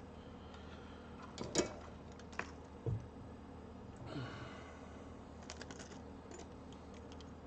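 Scattered clicks and taps of small hand tools on an amplifier circuit board during desoldering work, the loudest about a second and a half in and a brief scrape around the middle, over a steady low hum.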